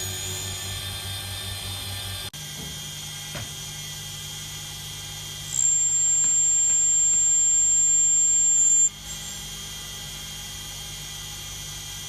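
Small watchmaker-lathe motor running steadily, with a loud, high-pitched squeal of carbide under contact lasting about three seconds, starting in the middle and cutting off suddenly.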